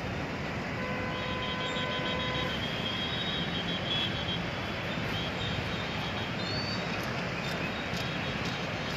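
Steady road noise of vehicles on a flooded street, with one horn sounding for about a second and a half, starting about a second in.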